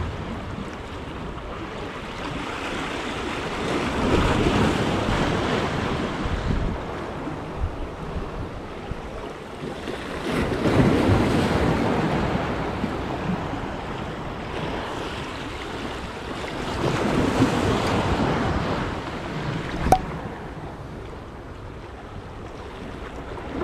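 Sea waves washing in, the noise swelling about every six or seven seconds, with wind on the microphone. A single sharp click about twenty seconds in.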